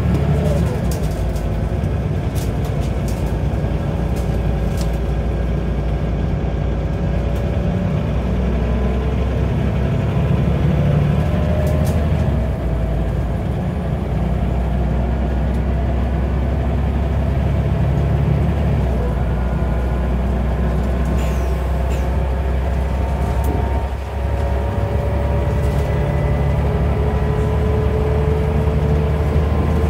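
Scania N94UB bus's 9.0-litre DC9 diesel engine and ZF Ecomat five-speed automatic gearbox pulling along, heard from inside the saloon. A steady low engine drone carries a whining tone that rises slowly in pitch twice. There is a brief drop in level about 24 seconds in.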